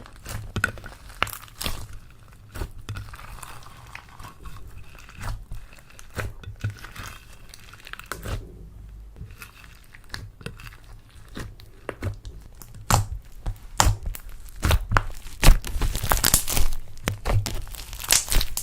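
Hands squishing, stretching and poking slime: a run of sticky clicks, crackles and small pops, getting busier and louder in the last third.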